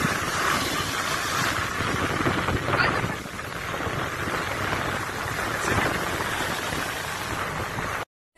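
Small sea waves washing up onto the beach, a steady rushing noise with wind buffeting the microphone. It cuts off suddenly near the end.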